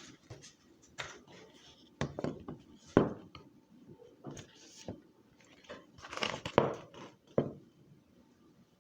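Scattered knocks and rustles of a picture book being handled as its pages are turned, the sharpest knocks about three seconds in and again near six and a half seconds.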